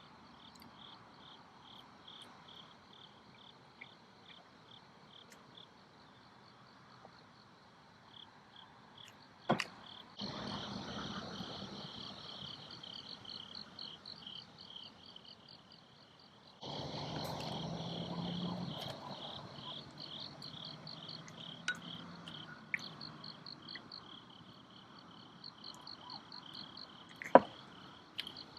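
Crickets chirping in a steady, rapid pulse. In the middle come two stretches of a steady rushing noise, and there are a few sharp clicks, the loudest near the end.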